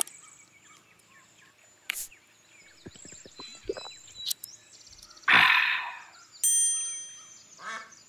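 Ducks quacking in short bursts near the end, over woodland birds chirping throughout; a short, loud rushing noise stands out about five seconds in.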